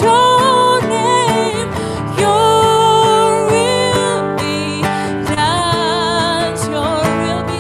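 Live worship band music: acoustic guitar with a voice holding long, slightly wavering sung notes.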